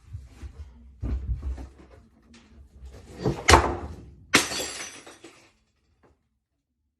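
A crash: thumps, then two sharp impacts a second apart, the second followed by a brief ringing clatter.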